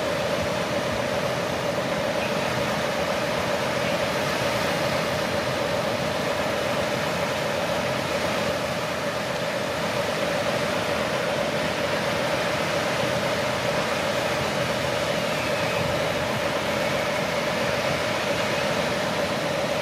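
Radio-controlled Volvo 6x6 articulated dump truck running as its bed tips up: a steady whine at one even pitch over a constant hiss.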